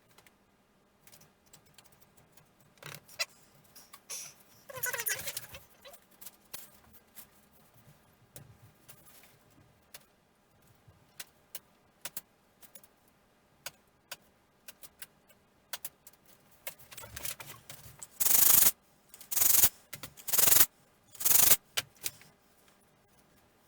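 Small parts being handled at a workbench: scattered clicks and taps, with four loud, short noisy strokes near the end.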